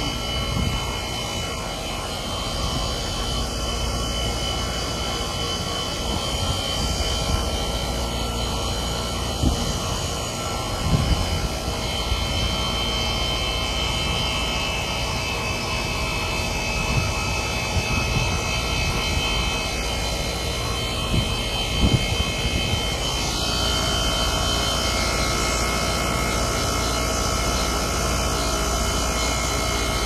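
LG air conditioner's outdoor unit running steadily, compressor and condenser fan, while it is being charged with refrigerant and the suction pressure is still low. A higher steady tone joins about three-quarters of the way through.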